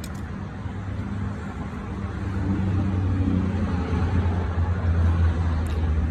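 A motor vehicle's engine rumbling close by, growing louder about two seconds in and staying loud.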